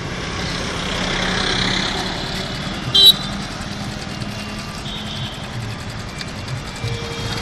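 Road traffic with a motorcycle engine running close by. A short vehicle-horn toot sounds about three seconds in, and a fainter horn beep follows a couple of seconds later.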